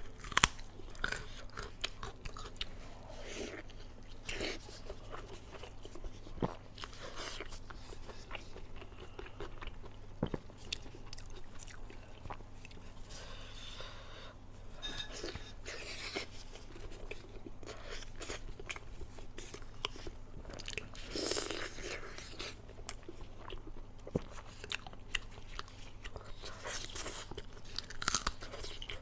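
Close-miked eating: irregular crunching bites and chewing, over a steady low electrical hum.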